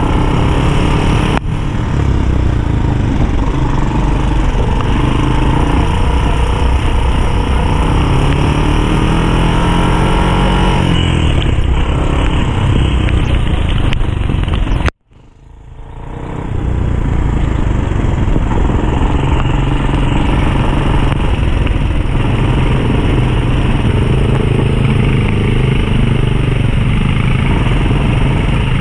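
ATV engine running under way, its pitch rising and falling with the throttle, over a steady rushing noise. About halfway through, the sound cuts out abruptly and then fades back in over a couple of seconds.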